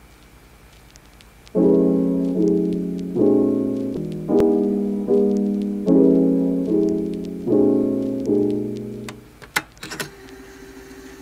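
Solo piano background music: a slow run of chords, each ringing out and fading, starting about a second and a half in and stopping near the end. A few sharp clicks follow.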